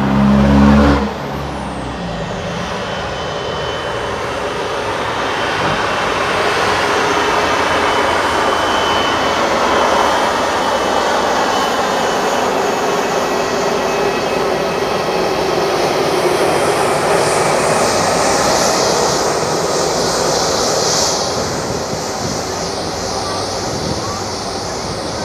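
Airbus A330-343 with Rolls-Royce Trent 700 engines rolling out along the runway after landing: a steady jet rumble and hiss that swells as the airliner passes, then eases as it moves away. A road vehicle passes close by with a brief low rumble at the start.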